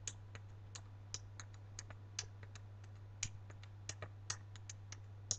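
Faint, irregular clicks, a few a second, over a steady low hum.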